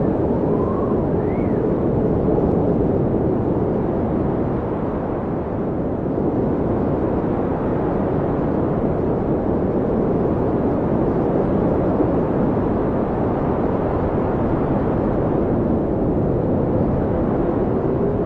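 Blizzard wind blowing hard and steadily, a dense low rush, with a couple of faint rising howls about a second in.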